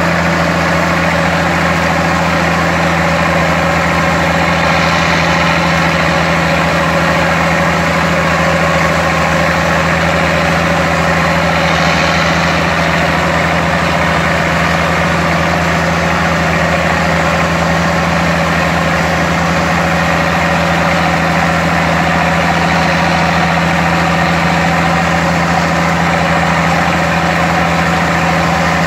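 Diesel engines of a Steiger Bearcat four-wheel-drive tractor and a Challenger MT945C tractor running steadily as the Steiger pulls the Challenger during drain tile installation: a loud, constant low drone.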